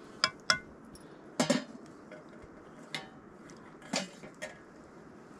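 Metal utensils clinking and knocking against cookware: about six separate sharp knocks. The first two ring briefly with a clear pitch, and a heavier knock comes about a second and a half in.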